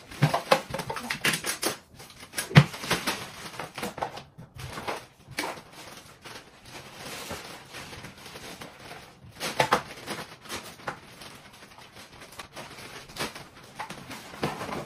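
Irregular clatter, knocks and rustling of small children gathering up plastic toys on a tiled floor, with busier bursts in the first few seconds and again about halfway through.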